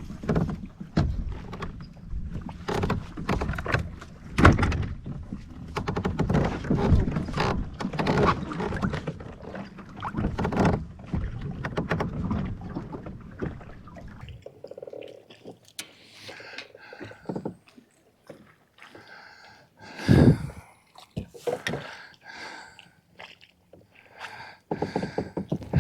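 Wind-driven chop slapping and knocking against a kayak's hull, with wind rumbling on the microphone. About halfway through the rumble drops away abruptly, leaving quieter water sounds, and one loud knock comes about twenty seconds in.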